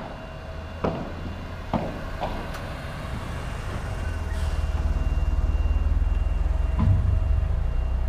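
Padel ball being struck by rackets and bouncing off the court's glass walls: a few sharp pops in the first couple of seconds and one more about seven seconds in. Under them, a low rumble swells in the second half and is the loudest sound.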